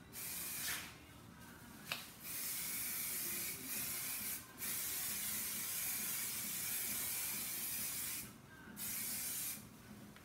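Aerosol spray can of primer hissing in a series of short and long bursts as a coat is laid on, the longest pass lasting about three and a half seconds, with a sharp click about two seconds in.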